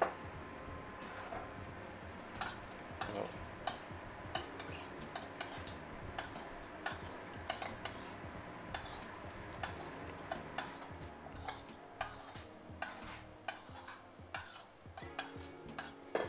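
A metal spoon stirring a thin sauce in a stainless steel bowl, clinking against the bowl's side again and again. The clinks start about two seconds in and come roughly twice a second.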